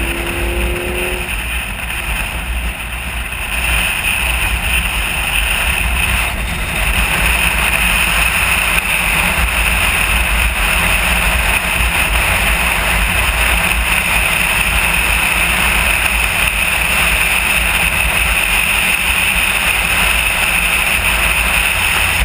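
Motorcycle riding at highway speed: a steady rush of wind and road noise over the engine's low rumble, picked up by a camera on the bike. An engine note rises briefly in the first second before the wind covers it, and the rush grows a little louder a few seconds in.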